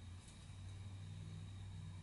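Quiet room tone: a steady low hum, with a faint tick about a quarter second in.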